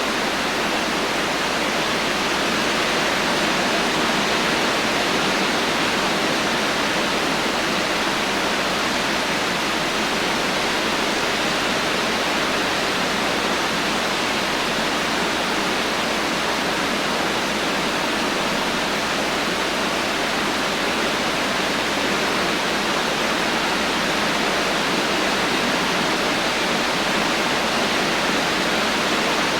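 Heavy rain falling as a steady, even hiss with no thunder.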